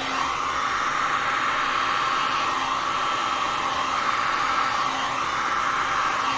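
Handheld heat gun blowing steadily, warming freshly poured epoxy resin so it flows and its air bubbles rise out.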